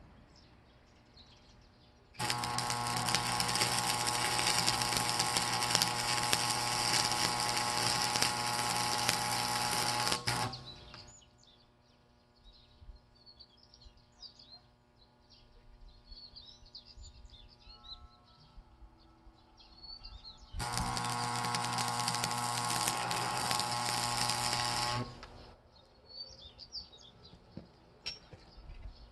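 Arc welder striking and holding an arc twice, about eight seconds and then about four and a half seconds: a loud hiss over a steady electrical hum, starting and stopping abruptly. Birds chirp faintly in the quiet between.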